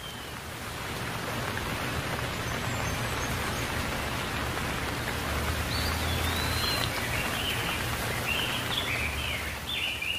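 Steady rain falling on leaves, growing a little louder over the first two seconds. From about halfway through, a bird calls with a string of short high chirps.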